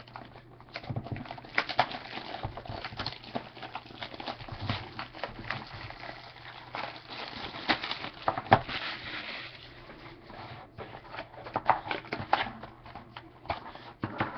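A sealed trading-card box being opened with a dull knife: crinkling, scraping and irregular sharp clicks as the plastic wrap and cardboard are cut and handled.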